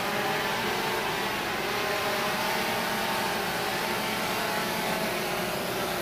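DJI Phantom 2 Vision quadcopter's four propellers buzzing steadily as it hovers low and settles down to land, with a few wavering tones as the motor speeds shift.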